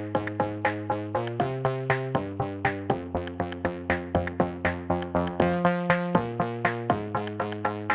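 Electronic background music: synthesizer chords changing every second or so, under quick repeated plucked notes with a steady beat.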